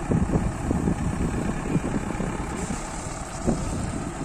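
Engine of a wheeled earth-moving machine idling with a steady low rumble.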